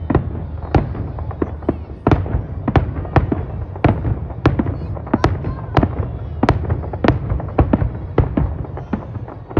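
Fireworks finale heard from a few blocks away: aerial shell bursts booming about twice a second, each with a short echo, over a continuous low rumble.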